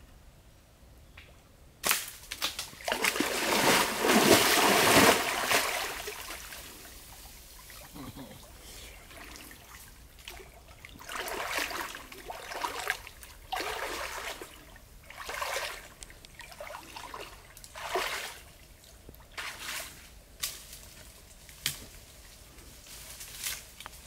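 Water splashing and sloshing as a person wades waist-deep through a creek: a long, loud burst of splashing about two seconds in, then a run of shorter sloshes, one every second or two, as the person strides through the water.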